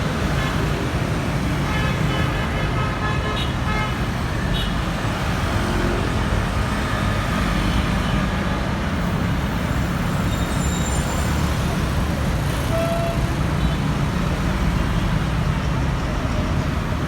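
Street traffic at a city bus stop: a steady rumble of engines and tyres, with a vehicle horn sounding about two seconds in, lasting a second or so.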